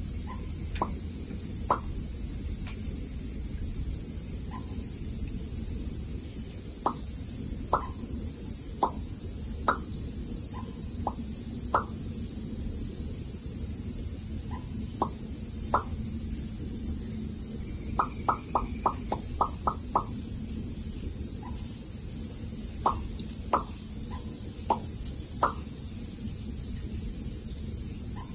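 Forest insect chorus, a steady high buzz, with scattered short sharp notes and a quick run of about half a dozen a little past the middle.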